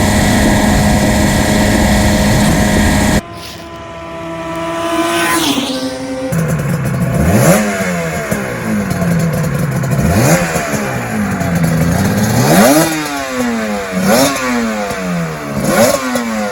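Yamaha TZR250 3MA two-stroke twin motorcycle engine. It runs at a steady high note for about three seconds, then after a cut it is revved repeatedly, each blip of the throttle rising sharply in pitch and falling away.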